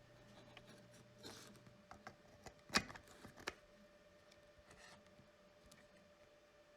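A few faint, short clicks and taps of small hard objects, the loudest about three seconds in, over a quiet room with a faint steady hum.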